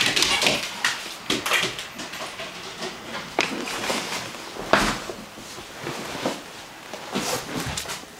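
A Newfoundland puppy chewing and squeaking a squeaky hippo toy, with irregular squeaks and knocks; the loudest come about three and a half and nearly five seconds in.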